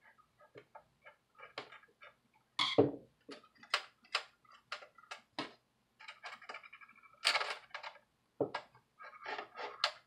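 Screwdriver turning screws out of a laptop hard drive's metal mounting bracket: a run of irregular small clicks and ticks of the tool and screw against the metal, with a few louder knocks, near 3 seconds and twice late on, as the drive and bracket are handled.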